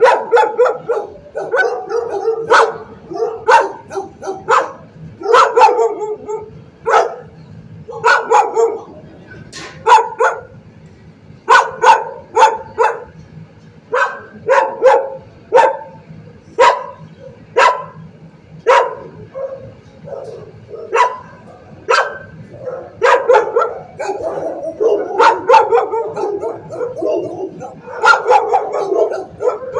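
Shelter dogs in their kennels barking, sharp barks coming every second or so, sometimes in quick runs, throughout.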